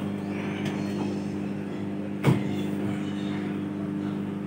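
Kenstar KJ20CBG microwave oven running at full microwave power, a steady hum. A single sharp knock sounds a little over two seconds in.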